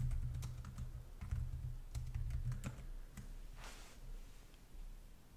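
Typing on a computer keyboard: a quick run of keystrokes entering a short line of text, thinning out after about three seconds.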